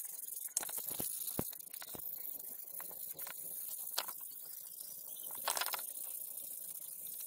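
A folded pad rubbed back and forth by hand over a brass cleaver handle: a steady scratchy hiss with scattered light clicks, and one louder scrape about five and a half seconds in.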